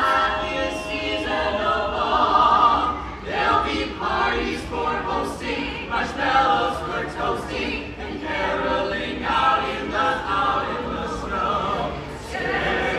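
Small mixed-voice group of carolers singing a Christmas carol a cappella in harmony.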